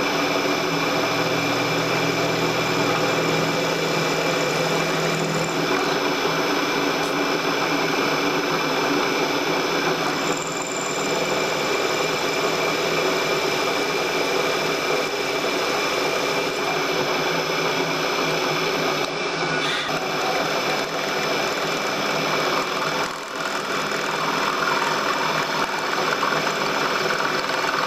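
Milling machine spindle running steadily while a twist drill cuts into an aluminium block, a steady mechanical hum with several held tones.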